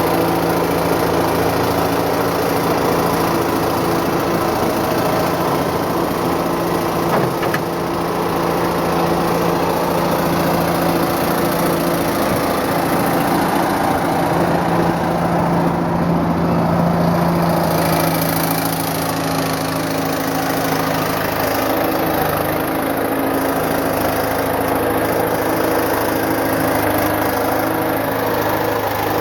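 Caterpillar 955 track loader's diesel engine running steadily, its note shifting slightly partway through.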